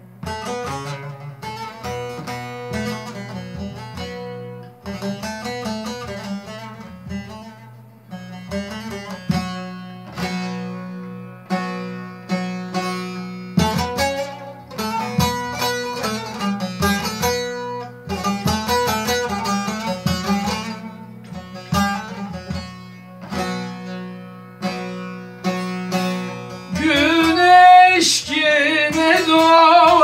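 Bağlama (long-necked Turkish saz) played solo with a plectrum: a quick plucked melody over steady ringing drone notes. Near the end a man's voice comes in singing in Turkish over the instrument.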